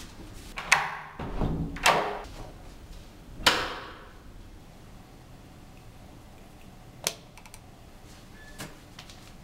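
An interior door being handled: several handle-and-latch clicks and knocks in the first few seconds, the loudest a door thud, then a single sharp click later on over quiet room tone.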